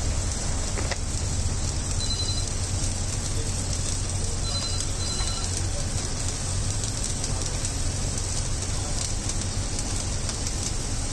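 Steady hiss over a low hum at a street-food cooking station, with a few short, faint high electronic beeps near the middle.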